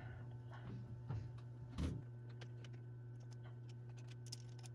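Faint, steady low hum, with a few light ticks and one slightly louder tap about two seconds in.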